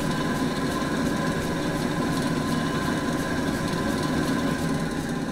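Large drill press running steadily: a continuous motor and spindle hum with a faint regular ticking.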